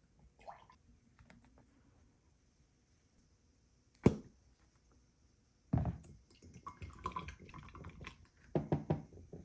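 Tableware handled during a meal: one sharp knock about four seconds in, then a run of clinks and thumps through the last few seconds.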